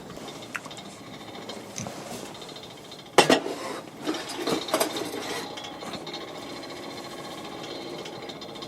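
Clattering knocks: a sharp one a little over three seconds in, then several more over the next two seconds, over a faint steady background.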